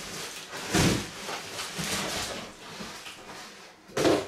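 Cardboard scraping and rustling as a large shipping box is lifted off the packed appliance, with a louder knock about a second in and another near the end.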